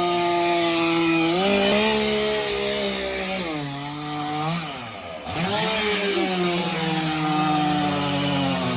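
Two-stroke chainsaw running and cutting wood, its engine pitch shifting under load, dropping sharply about halfway through and then picking back up.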